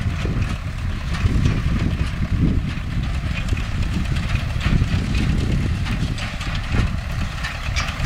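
MTZ-5LS tractor's diesel engine running steadily under a Vestjyden hay baler, with a busy clatter of rapid clicks and knocks over the engine's steady low sound.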